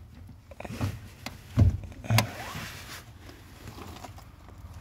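Bonnet release lever of a Volvo S40 being pulled, with dull clunks from the lever and latch: a small one under a second in, then two louder ones about one and a half and two seconds in.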